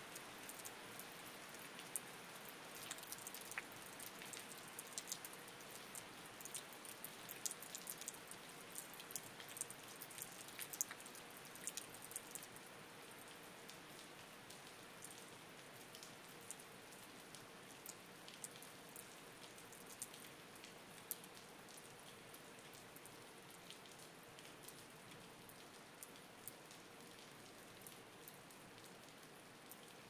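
Light rain falling: a soft steady hiss with many separate drops striking close by, the drops thick in the first dozen seconds and thinning out after.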